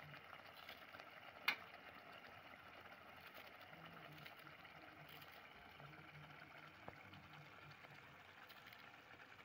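Near silence with a faint steady hiss, broken by one sharp metallic click with a short ring about one and a half seconds in, as a knife strikes a steel dish while green coriander is cut by hand; a much softer tick comes later.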